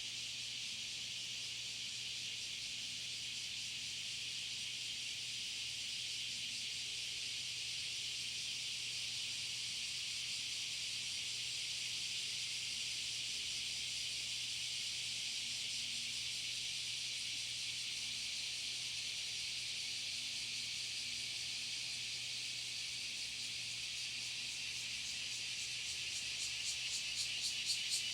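A dense chorus of insects singing steadily in high-pitched trills. Near the end a pulsing call of about three beats a second comes in and grows louder.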